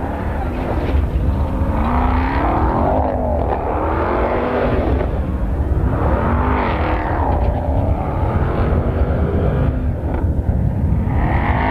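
Ram 1500 TRX's supercharged 6.2-litre V8 revving as the truck spins donuts in loose dirt, its pitch swelling up and falling back about every two seconds over a steady low rumble.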